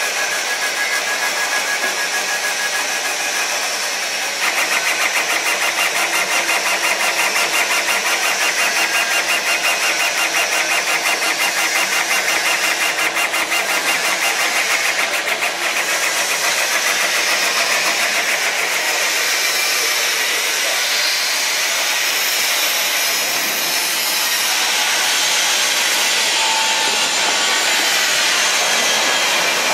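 Four-head CO2 laser cutting machine running as it cuts clear acrylic sheet: a steady loud whir and hiss from the machine, with a fast even pulsing from about four seconds in until about sixteen seconds.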